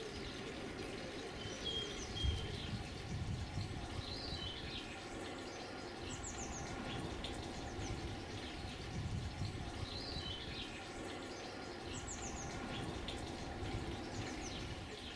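Garden birds singing outdoors, one bird repeating the same short whistled phrase every few seconds, over a steady low rumble and faint hum. A brief low thump comes about two seconds in.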